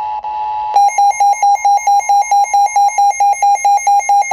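Emergency Alert System tornado-warning alert tones: the steady two-tone attention signal cuts off under a second in and gives way to a single loud beep pulsing rapidly, about five beeps a second.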